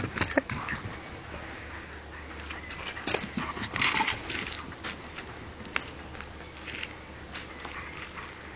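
A dog moving about and playing on grass, with scattered light patters and rustles and a brief hissing burst about four seconds in.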